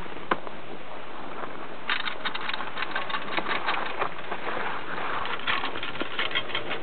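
Haul rope of a platter ski lift running over a support tower's sheave rollers, rattling in quick, irregular clicks from about two seconds in, over a steady hiss.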